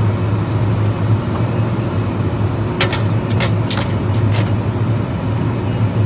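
Steady low machinery hum with a few small metallic clicks and clinks, about halfway through, as hand tools are handled.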